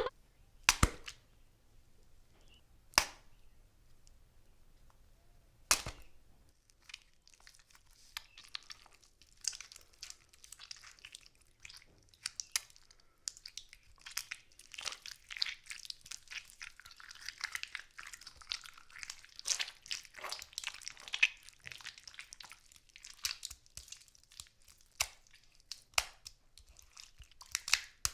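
A tomato being smashed and crushed for gore sound effects. Three sharp separate hits in the first six seconds, then a long run of many small, close-together clicks and crackles as the fruit is broken up.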